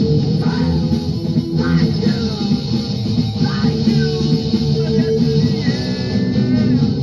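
Hardcore punk band playing loudly and continuously, driven by electric guitar, from a 1993 cassette demo recording.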